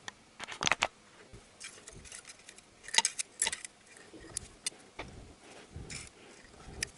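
Scattered light metallic clicks and clinks in small clusters: long metal tweezers knocking against spark plugs in their plug wells as the plugs are lifted out.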